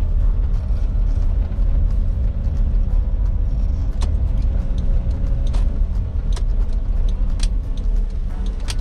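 Cabin noise of a 1996 Suzuki Jimny JA22, its small turbocharged three-cylinder engine and the road giving a steady low rumble while driving. From about four seconds in there are a few sharp clicks or rattles.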